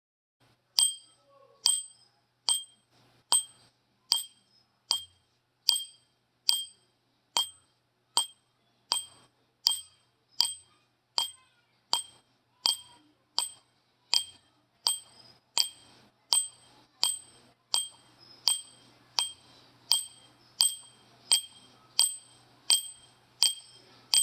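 A small bell struck over and over at a steady pace of a little more than one strike a second, each strike a short, high, clear ring that dies away quickly. A faint background hiss joins about halfway through.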